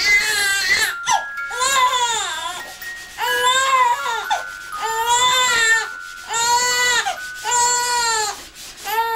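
Newborn baby crying: a run of repeated cries, each about a second long, with short breaks for breath between them.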